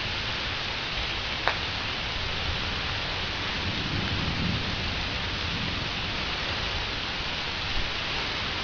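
Steady rain, with a low rumble of distant thunder rising and fading about four seconds in. A single sharp tap, likely a drop, lands about a second and a half in.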